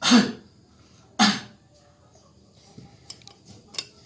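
A man coughing forcefully twice, about a second apart: deliberate coughs of an effective-cough exercise, meant to bring up phlegm. A few faint clicks near the end.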